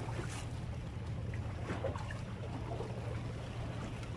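Steady low rumble of wind and sea, with water slapping against a concrete breakwater and faint light clicks as a telescopic fishing rod is pulled out.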